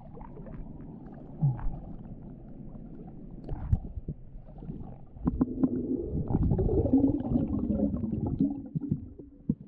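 Water sloshing and splashing against the camera at the surface, then muffled underwater rumbling and gurgling once the camera goes under, growing louder about halfway through.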